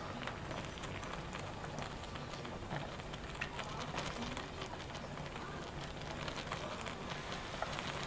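Seafood hot pot broth simmering on a portable butane gas stove, a steady bubbling hiss, with scattered light clicks of chopsticks against the pot and noodles.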